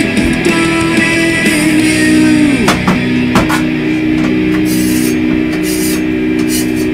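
Punk rock music with guitar playing. From about the middle on, a metal scraper or spatula rasps across a flat-top griddle in short scratchy strokes.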